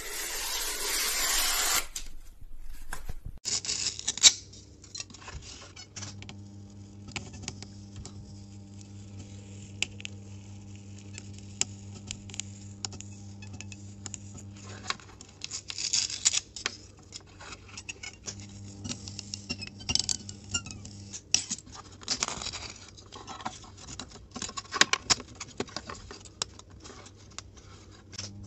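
A large knife slices down through a rolled paper tube, a long rasping hiss lasting about two seconds. Then small scratches, taps and clicks of XPS foam pieces and a thin wooden template being handled and slid on a cutting mat, with a sharp tap about four seconds in and a low hum that comes and goes.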